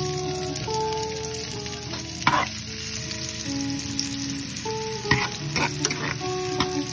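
Sliced onion, ginger and garlic sizzling steadily in oil in a nonstick frying pan. A metal spoon scrapes and clicks against the pan as it stirs, about two seconds in and several times around five seconds in. Soft background music plays underneath.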